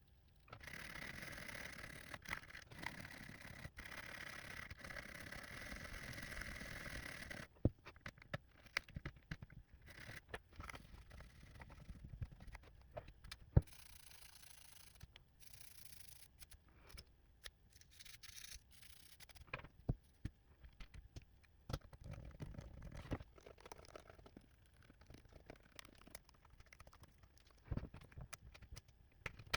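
Close-up scrubbing, scraping and clicking at a 12-inch MacBook's butterfly keyboard as its sticky keys are cleaned. A steady hiss runs for about the first seven seconds and then stops. Irregular small clicks, taps and short scratches of bristles and keys follow.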